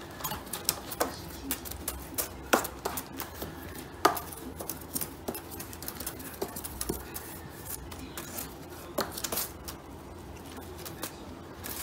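Irregular light clicks and taps of a cat-teaser wand toy being flicked and knocked against a cardboard scratcher and the floor, with a few louder knocks among them.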